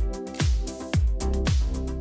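Electronic dance music with a steady kick drum, about two beats a second, over held chords and cymbal ticks.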